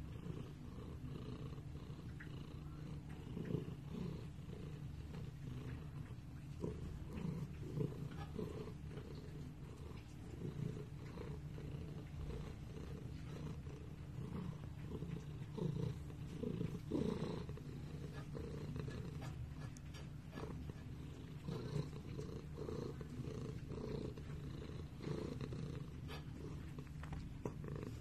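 Domestic cat purring steadily and continuously, close up, while it is being stroked.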